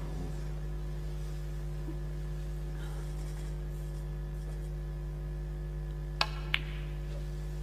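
A snooker shot: two sharp clicks about a third of a second apart, the cue tip striking the cue ball and then the cue ball striking an object ball, near the end. A steady electrical hum runs underneath.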